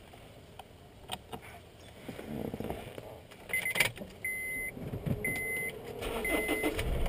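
Car's warning chime beeping evenly about once a second, each beep about half a second long, the kind of chime that sounds with the door open and the key in. Before it come a few small clicks and a knock as someone gets into the seat, and a low rumble comes in near the end.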